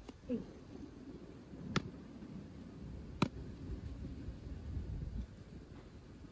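Cleaver blade knocking against the shell of a large golden freshwater mussel: three or four sharp clicks about a second and a half apart, over a low steady background noise.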